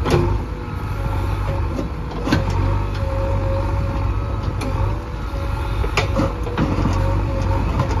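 JCB 3DX backhoe loader's diesel engine running steadily under working load, with a steady tone over its drone. Several sharp knocks and scrapes come through as the backhoe bucket digs into broken stone.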